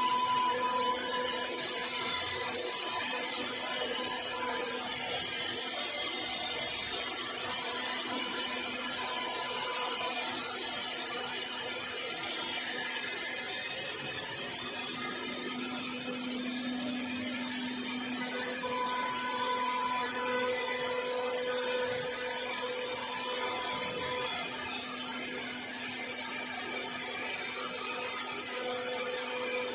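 SUDIAO D1 CNC router's spindle running and milling a door case: a steady whine over cutting noise, with several tones that fade in and out as the cut goes on.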